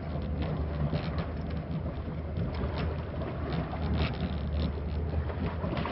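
Fishing boat's engine running at idle with a steady low hum, with short irregular sharp sounds over it.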